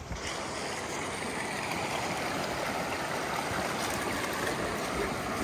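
Steady rush of a shallow, rocky river flowing, with water pouring from a hose outlet into it at the bank.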